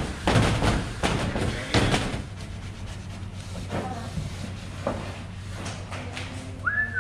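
Scratchy rubbing strokes as hands smooth a vinyl wrap onto a race-car body panel, loudest in the first two seconds, over a steady low hum. Near the end a cat meows once, its pitch rising and then falling.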